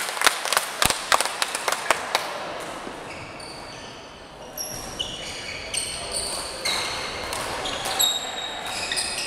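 A few seconds of scattered hand claps, then a badminton rally: rackets striking the shuttlecock and court shoes squeaking in short high chirps on the hall floor, from about halfway in.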